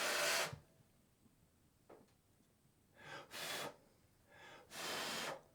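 Three short puffs of a person's breath, each about half a second long, near the start, about three seconds in and near the end.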